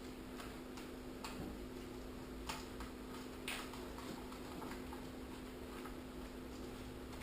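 A few light, irregular clicks and taps from a package of bacon being handled and opened, over a steady low hum.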